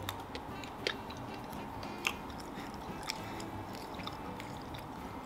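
Chewing and biting on pieces of spicy dried squid snack, with a few sharp crunches spread through the chewing.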